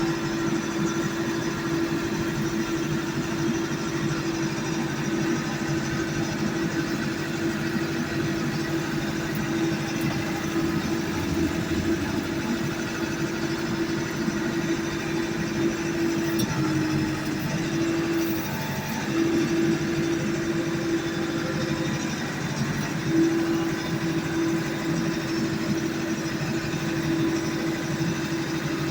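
A steady motor hum with one held tone that breaks off briefly a few times past the middle.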